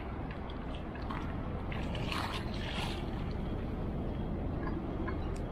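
Steady low rumble of wind buffeting the microphone beside open water, with a splash and slosh of water about two seconds in.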